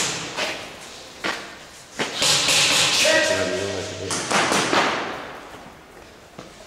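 Airsoft skirmish in close quarters: a few sharp cracks, then two bursts of airsoft fire about a second each, with a shout between them.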